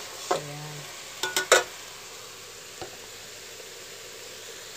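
Chicken pieces sizzling as they are sautéed in an aluminium pot, stirred with a metal turner. The turner knocks against the pot in a quick run of three clanks about a second and a half in, and taps it once more lightly.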